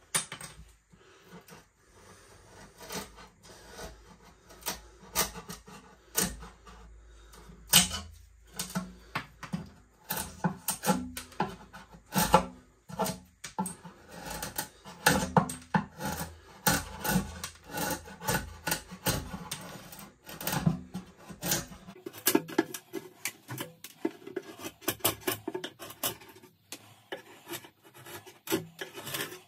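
A wood chisel, pushed by hand, paring the front lip off a wooden shelf board: irregular short scraping strokes with sharp clicks as the wood splits away.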